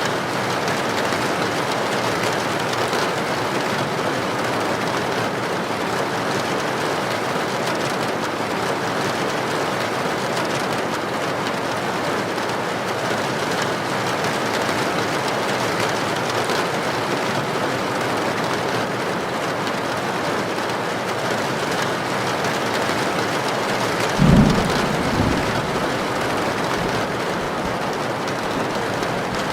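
Heavy rain falling steadily on a tin roof, an even hiss. About 24 seconds in comes a short, loud, low boom of thunder, with a weaker one about a second later.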